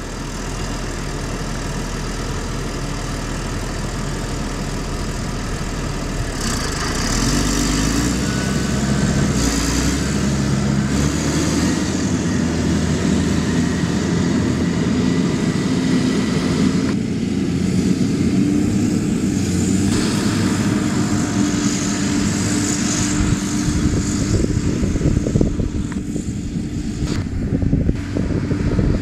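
TerraGator floater applicator's diesel engine idling, then revving up about six seconds in as the machine pulls away and keeps running steadily while it drives.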